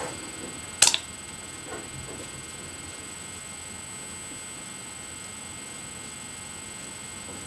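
Steady background hiss with a thin, high, constant whine, broken about a second in by one sharp click or knock, the loudest sound.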